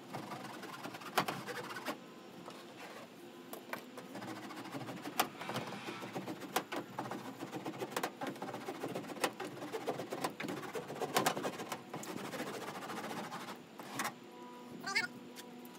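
Hand roller worked back and forth over an 80-mil Kilmat butyl sheet with a foil face, pressing it onto the sheet-steel wall panel of a Ford Transit: continuous scraping and crinkling of the foil with many small clicks and knocks against the panel.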